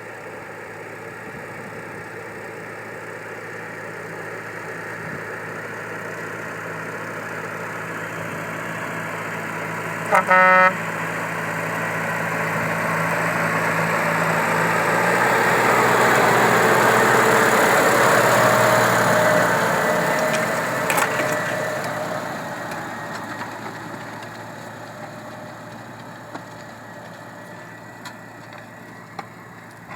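Claas Arion 540 tractor engine pulling a five-furrow plough, growing louder as it approaches, loudest about two-thirds through, then fading as it moves away. A short horn toot sounds about ten seconds in.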